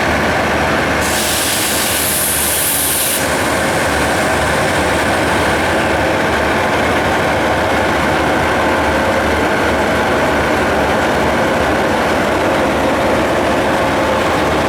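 Diesel locomotive of a standing freight train idling with a steady low throb. About a second in, a loud hiss cuts in for about two seconds and then stops.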